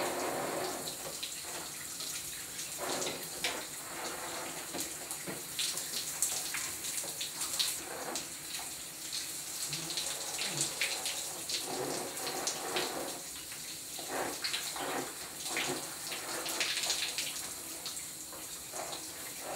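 Shower water running steadily and spraying onto a person's head and hair as they are washed, with scattered splashes and drips.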